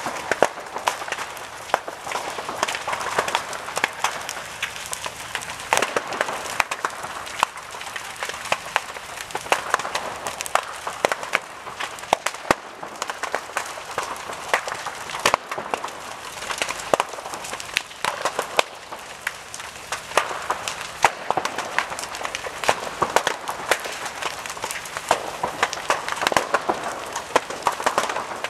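Burning timber-framed building crackling and popping: many sharp irregular cracks over a steady rushing noise.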